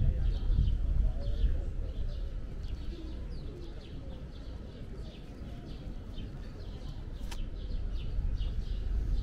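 Small birds chirping in quick, repeated short notes over a steady low rumble of city background noise, with a single sharp click about seven seconds in.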